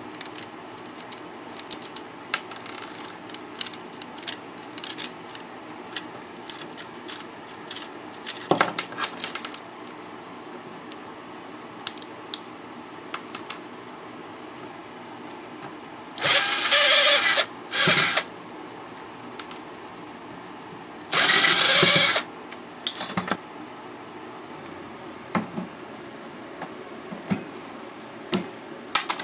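Small metal parts and screws clicking and clattering as a car stereo is taken apart by hand. A power drill whirs in two short runs of about a second each, a little past halfway and again a few seconds later.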